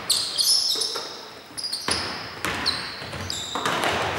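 A basketball bouncing a few times on a hardwood court while sneakers squeak in short, high-pitched chirps, in a large indoor arena.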